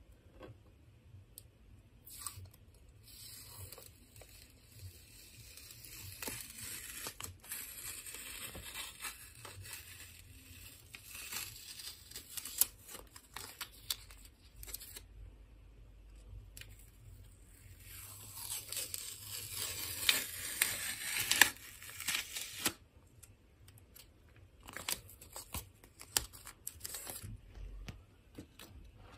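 Blue painter's tape being peeled off watercolor paper: a slow dry ripping as the adhesive lets go, one long pull from about two seconds in to about fifteen, another from about eighteen to twenty-two seconds, then several short pulls near the end.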